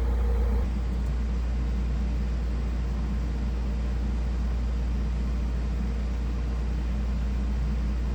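Room air conditioners running in cooling mode: a steady hum of compressor and fan with a constant airy whoosh. About half a second in, a faint steady higher tone in the hum stops.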